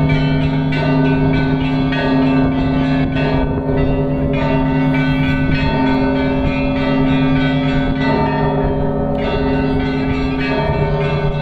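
Orthodox church bells rung by hand in a full peal, the ringing before the Gospel reading: quick strokes on the small bells over the long-ringing tones of larger bells, which are struck again every second or two.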